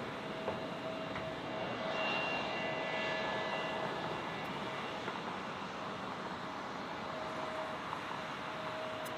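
Jet airliner engines heard near the runway: a steady rushing noise with a held whine through it, and a higher, fainter whine about two seconds in that fades out before the halfway point.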